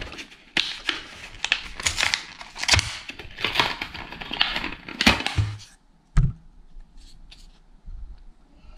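Plastic-and-card blister pack of super glue tubes crinkling and tearing as it is pulled open, for about five seconds. Then a single dull thump about six seconds in, and a few faint clicks after it.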